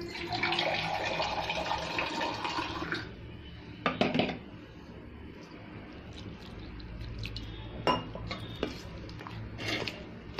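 Spoon mixing a gram-flour, onion and spice pakoda mixture in a steel bowl. There is continuous scraping for the first three seconds, then separate clinks of the spoon against the metal bowl about four, eight and ten seconds in.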